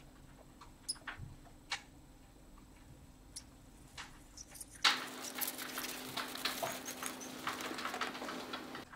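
Mice moving about in dry hay and straw bedding. For the first few seconds there are only a few scattered light clicks and rustles; then, about halfway through, a dense crackling rustle of straw sets in. A faint steady low hum runs underneath.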